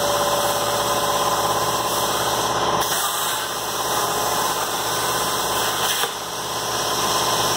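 A Wright CNC plasma table's torch cutting holes into 4x2 steel tube: a loud, steady hissing noise with a short break about six seconds in.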